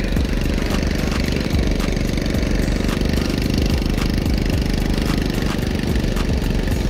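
Motorbike engine running steadily while riding along a sandy road, towing a small trailer loaded with coconuts.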